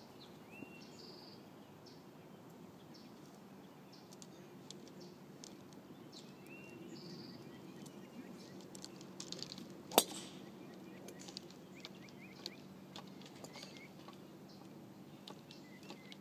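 Open-air ambience with a short rising bird chirp heard twice, a few seconds apart, and one sharp click about ten seconds in, the loudest sound, with a few faint ticks around it.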